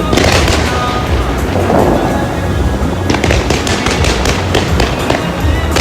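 Fireworks popping and crackling over loud music with a steady heavy bass; the crackling thickens about three seconds in.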